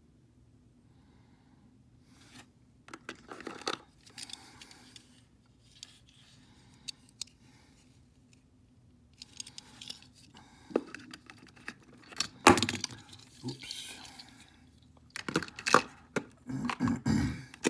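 Small die-cast metal toy cars and a little cardboard box being handled: scattered light clicks, scrapes and rustling, growing into louder clatter a little after the middle and again near the end.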